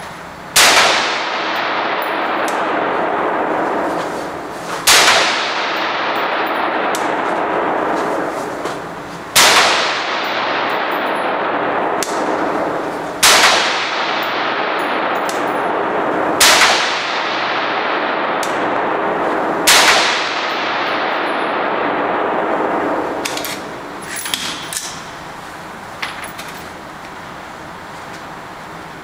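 AR-15 rifle firing six slow, aimed single shots about three to four seconds apart, each crack trailing into a long wash of echo off the indoor range's walls. A few light clicks follow near the end.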